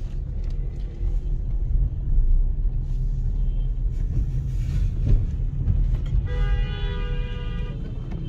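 Steady low engine and road rumble heard from inside a car cabin in traffic. About six seconds in, a vehicle horn sounds, held for under two seconds.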